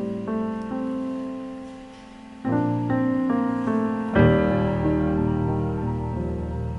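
Background piano music: gentle sustained chords, with a fuller, louder chord coming in about four seconds in.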